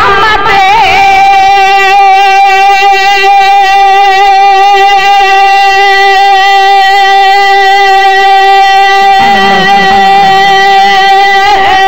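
A naat reciter holding one long sung note on a steady pitch for about nine seconds, the voice then wavering into an ornamented phrase near the end.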